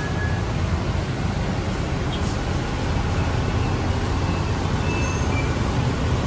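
Steady low rumble of a Transjakarta bus standing at the platform together with street traffic.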